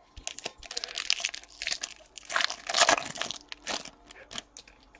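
Foil wrapper of a trading-card pack crinkling as it is torn open and handled, with a dense stretch of crackling in the middle.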